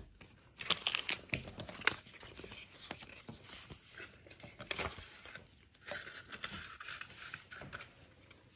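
Paper rustling and crinkling in quick, irregular crackles: lucky-money envelopes and banknotes being handled.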